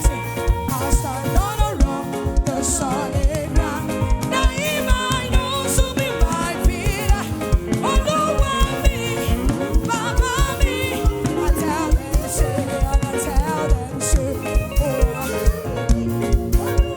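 Upbeat live gospel worship band music with a steady, driving drum beat and a wavering melody line over it.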